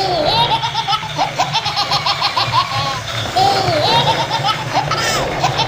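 A baby laughing in a string of short, high, bouncing giggles, over a steady low hum.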